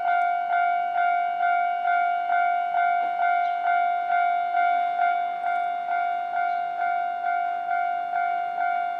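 Japanese level-crossing warning bell ringing: one electronic ding repeated about twice a second, each strike fading before the next. It is the signal that a train is approaching and the crossing is closing.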